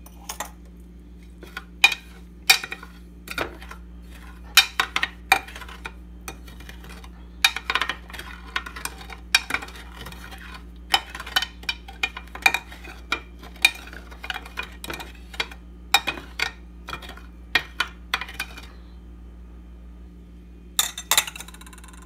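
Metal spoon stirring sugar and water in a glass dish, clinking and scraping against the glass again and again. The stirring stops for a couple of seconds near the end, then a few more clinks follow.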